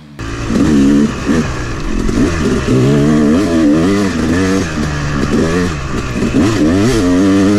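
Yamaha two-stroke dirt bike engine revving up and down again and again as it is ridden hard, heard close from the bike's own onboard camera. It begins abruptly just after the start.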